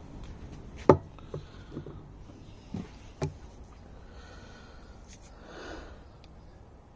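A handful of sharp clicks and knocks as the gas strut's end fittings and clip are worked onto the Peugeot Expert tailgate mounts by hand, the loudest just under a second in; near the end there is a short breathy noise.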